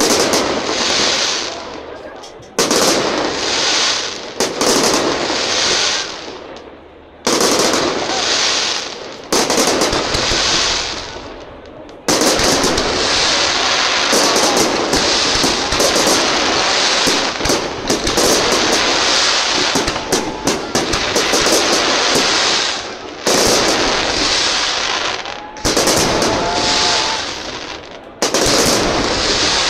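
Aerial fireworks display: shell bursts going off one after another, each sudden bang followed by a crackling tail that fades over a second or two. From about twelve seconds in the bursts merge into a dense, continuous rapid crackling for roughly ten seconds, after which separate bursts resume twice near the end.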